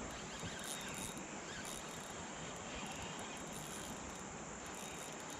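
Quiet outdoor ambience: a steady hiss with faint, pulsing insect chirring high up.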